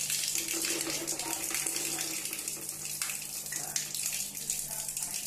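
Water gushing under full pressure from a bathroom wall spout and splashing onto the floor, driven through the main line by a car pressure washer to flush sediment out of the clogged pipe. It is a steady rush with no breaks.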